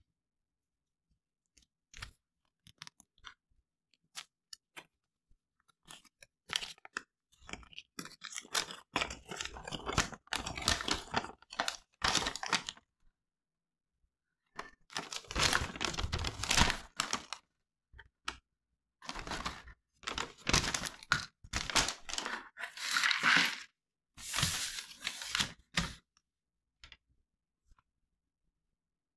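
Paper instruction sheet being unfolded and handled, crinkling and rustling in several bursts, with a few faint clicks in the first seconds.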